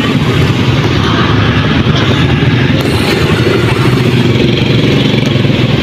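Small motorbike engine idling steadily close by, with street traffic behind.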